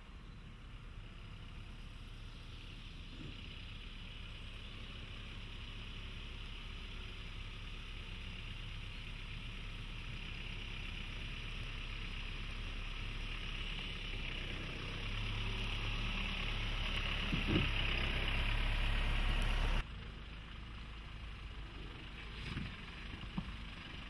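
Toyota Hilux double cab's 2.4-litre four-cylinder diesel engine running as the pickup crawls over rough ground, growing steadily louder, then dropping off suddenly about twenty seconds in. A few short knocks near the end.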